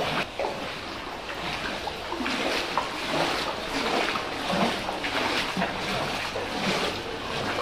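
Footsteps wading through ankle-deep floodwater, splashing and sloshing with each step.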